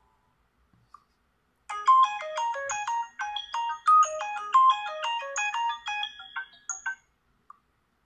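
Sharp Aquos wish2 (SH-51C) smartphone playing a built-in ringtone through its loudspeaker: a fast run of short, bright chiming notes jumping up and down in pitch. It starts about two seconds in and stops about a second before the end.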